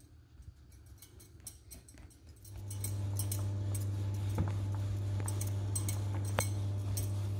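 Wooden rolling pin rolling out naan dough on a floured countertop, with faint light taps and clicks. About two and a half seconds in, a steady low electrical hum starts and carries on, louder than the rolling.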